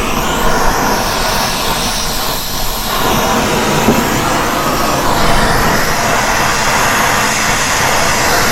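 Brazing torch burning with a steady hiss while copper refrigerant line joints are brazed.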